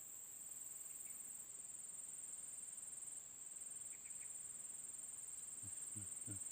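A steady, high-pitched insect chorus, a continuous shrill buzz that dips briefly a few times.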